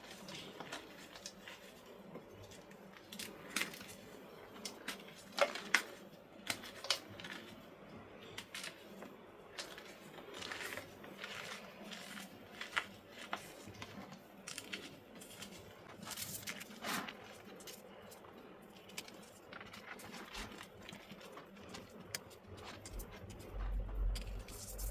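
Purple gym chalk blocks being crunched and crumbled: irregular dry crunches and crackles, with a low thump near the end.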